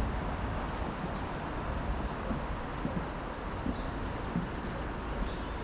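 Footsteps walking along a trail path, a step about every 0.7 seconds, over a steady rushing outdoor noise.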